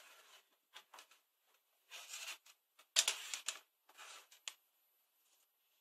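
Handling noise of power-supply test leads with crocodile clips being picked up and moved across a wooden worktop: short rustles and light clicks, the loudest a sharp click about three seconds in.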